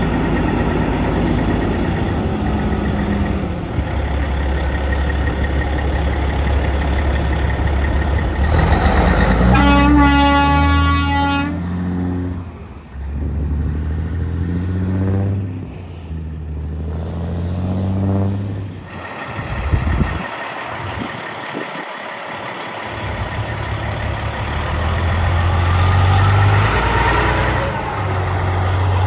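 Diesel semi tractors running as they pull out. About ten seconds in, an air horn blasts for about two seconds. Then a truck's diesel pulls away through several gears, its pitch climbing and dropping at each shift, and near the end another diesel rig revs up as it pulls onto the road.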